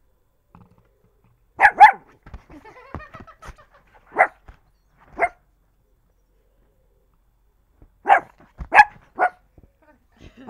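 Small dog giving short, sharp barks in bunches: two quick ones, then single barks, then three more near the end. Play barking, the dog wanting to play.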